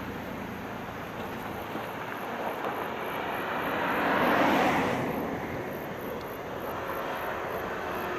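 A passing vehicle's noise swells to a peak about four and a half seconds in and then fades, over steady open-air background noise, while a JR 115 series electric train approaches in the distance.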